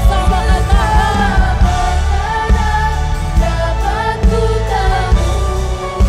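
Live worship band playing a pop gospel song: Yamaha MOXF8 keyboard with bass and drums keeping a steady beat, and voices singing over it.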